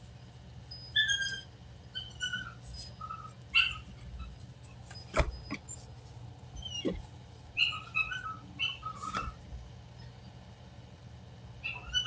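Dog whining in short, high-pitched whimpers, repeated on and off. A single sharp thump sounds about five seconds in.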